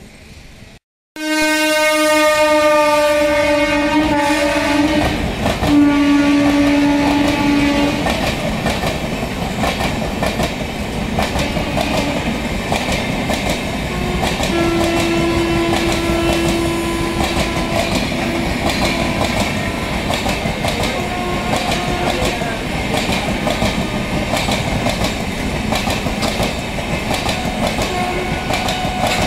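Indian Railways express train of red LHB coaches passing a station platform: two long locomotive horn blasts, then the steady rolling of the coaches with fast clickety-clack of wheels over rail joints. A fainter steady tone sounds about halfway through.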